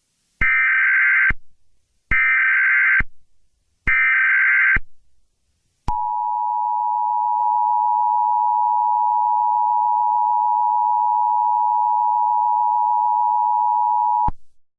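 Emergency Alert System tones: three short bursts of SAME header data, each a buzzy digital screech lasting about a second, then the two-tone EAS attention signal (853 and 960 Hz together) held steady for about eight seconds before it cuts off sharply.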